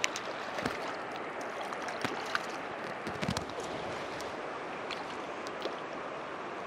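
Steady rush of a shallow, riffled creek flowing. Over it come a few short splashes and clicks as a hooked brook trout thrashes at the surface and is netted, most of them in the first half.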